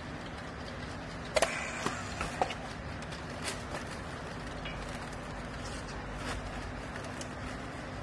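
Steady machine hum of a vertical clothes baler, with a quick cluster of sharp plastic clicks about a second and a half in and a few lighter ticks after, as PET strapping is fed and handled with a handheld battery strapping tool around the pressed bale.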